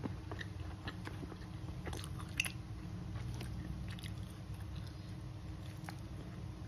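A person chewing a mouthful of rice close to the microphone, with scattered small wet clicks and one sharper click about two and a half seconds in, over a steady low hum.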